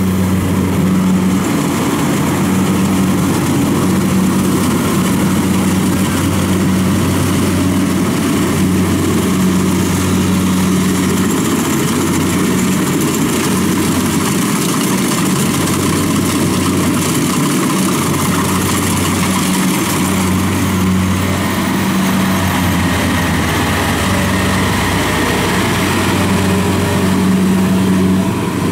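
Kubota DC70 combine harvester running steadily while harvesting rice, its engine giving a constant even drone.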